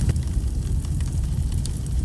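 Wood fire burning: a steady low rumble of the flames with sharp, irregular crackles and pops from the burning logs.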